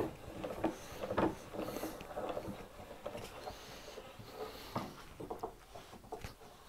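Scattered light knocks and clicks of parts being handled on a workbench, over a low rustle.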